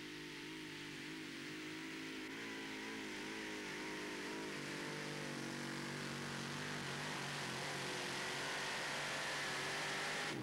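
Arias V8 engine of a pulling tractor running flat out under load as it drags the sled down the track, a steady, slightly wavering drone that grows gradually louder.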